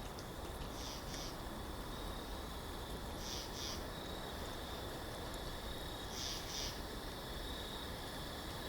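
Nature ambience: a high two-part chirp repeats about every three seconds over a thin, steady high trill and a low background hiss.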